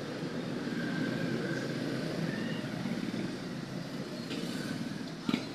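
Steady low background rumble with a short sharp click near the end.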